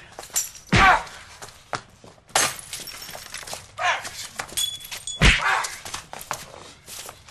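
A jumble of loud knocks and crashes with short shouted voices between them; the loudest hits come about a second in and again past the five-second mark.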